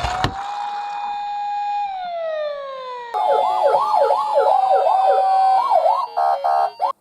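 Ambulance siren sounds: a steady siren tone that winds down in pitch, then from about three seconds in a fast up-and-down wail over a steady tone, breaking into short chopped pulses before cutting off suddenly near the end.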